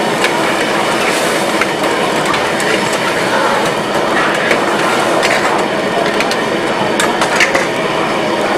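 Metal ladle and tongs clinking and scraping against a steel pan as chicken pieces are stirred in thick gravy, with scattered sharp knocks over a loud, steady rushing noise.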